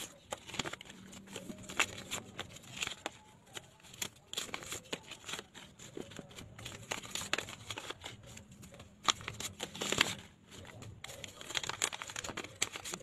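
Paper envelopes being opened and rupiah banknotes handled and sorted by hand: irregular crinkling and rustling of paper, with many short sharp crackles.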